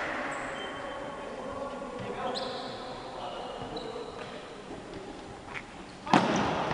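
Futsal being played on a wooden gym floor in an echoing hall: short high squeaks of players' shoes and scuffling feet, then a sudden loud knock about six seconds in, the ball being struck.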